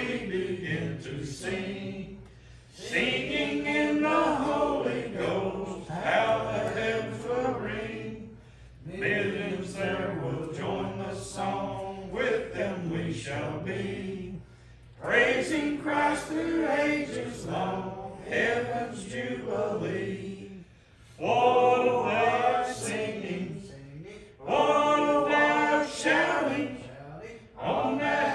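Church congregation singing a gospel hymn together, in phrases of a few seconds with short breaks for breath between lines.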